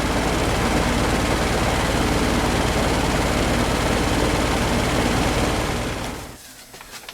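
Goodman heat pump outdoor unit running steadily: compressor hum under the whoosh of the condenser fan. Near the end the sound drops away quickly to near quiet.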